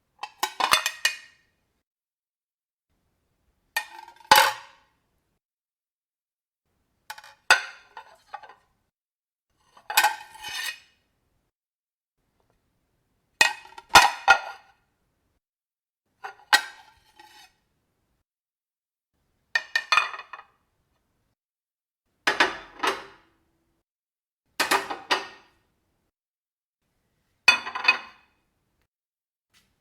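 Dishes being struck, in about ten separate short bursts of a few quick clinks and clatters each, every burst ringing briefly before dying out.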